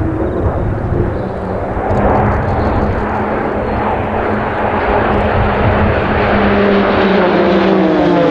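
A formation of RAAF Roulettes Pilatus PC-9/A single-engine turboprop trainers flying over, with steady engine and propeller noise that grows louder. Near the end the propeller tones slide down in pitch as the aircraft pass by.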